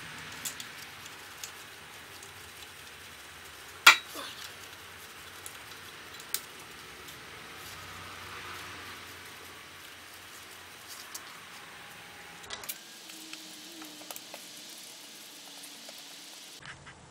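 Metal parts and hand tools being handled while the starter motor is fitted to the BMW K75 engine: scattered light clicks and knocks, with one sharp knock about four seconds in, over a steady hiss.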